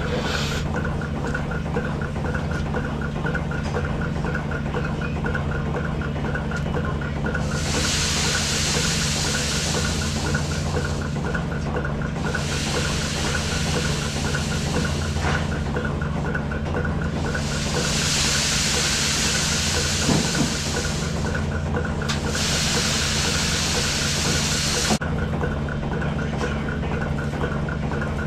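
Milking parlor machinery running steadily: the vacuum system's hum with the milking units' regular pulsation. Four times, a hiss of three to four seconds rises over it, the first about seven seconds in.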